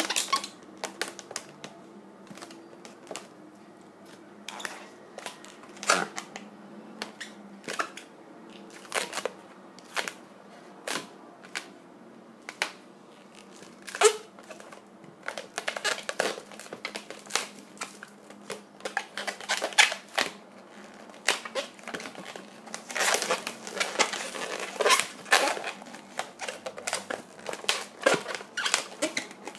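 Latex modelling balloon squeaking and rubbing under the fingers as it is handled and twisted, in scattered sharp squeaks and creaks that come thickest a little after two-thirds of the way through.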